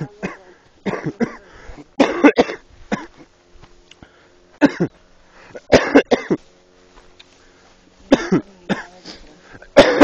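A person coughing in short, loud bursts, about seven times, a second or two apart.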